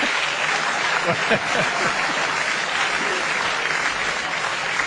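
Studio audience applauding steadily, with a few voices calling out about a second in.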